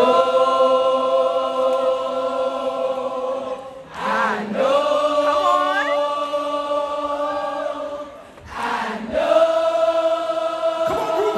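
Audience singing a gospel song together in unison, as a choir, in three long held phrases with short breaks between them.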